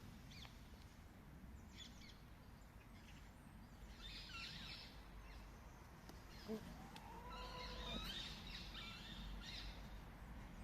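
Faint bird calls: clusters of quick high chirps, and a drawn-out call that rises and falls about six and a half seconds in, typical of chickens in a yard.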